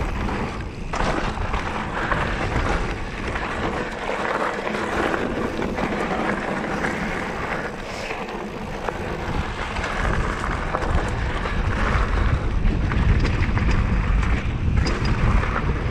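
Mountain bike ridden along a dirt trail: tyres rolling and the bike rattling over the ground, with wind buffeting the camera microphone. The wind rumble gets heavier about two-thirds of the way through.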